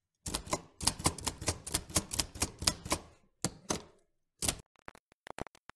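Manual typewriter keys being struck: a run of sharp clacks at about four a second, then after a short pause a few more single strikes, and near the end a quicker run of fainter ticks.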